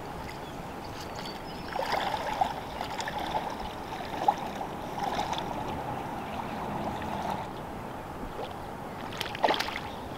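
River water running and lapping around a wading angler, with irregular splashing from about two seconds in and a sharper splash near the end.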